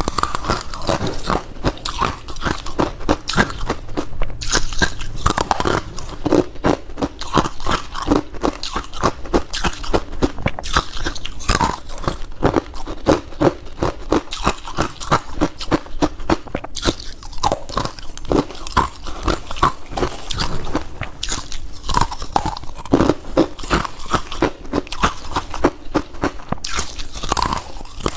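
Rapid, continuous close-up crunching of someone biting and chewing crunchy humidifier frost scraped from a freezer.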